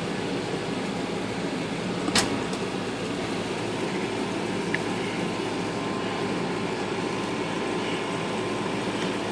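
Steady low hum of background machinery, with one sharp click about two seconds in.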